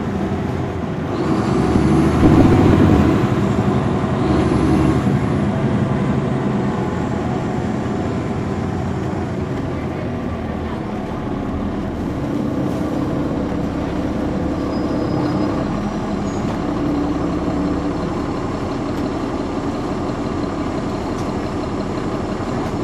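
Diesel engine of a 2009 NABI 416.15 transit bus, a Caterpillar C13 ACERT driving a ZF Ecomat six-speed automatic, running under way. The engine note swells about a second in and is loudest around two to three seconds in, then settles to a steady run.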